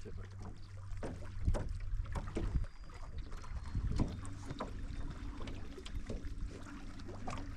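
A fishing boat on the water: a steady low hum with scattered, irregular knocks and taps.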